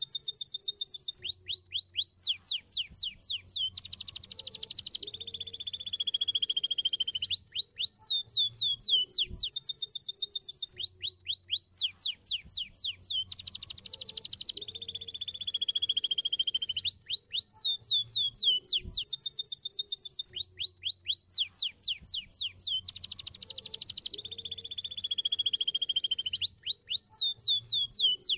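Domestic canary singing: fast trills of sweeping notes, then long drawn-out whistled notes that fall slightly in pitch. The same song phrase repeats about every ten seconds.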